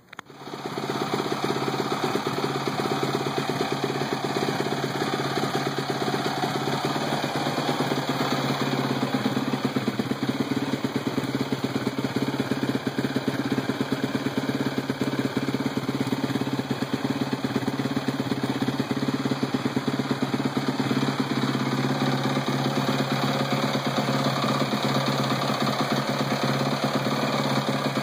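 2007 Yamaha YZ450F's single-cylinder four-stroke engine comes in suddenly at the start and then idles steadily.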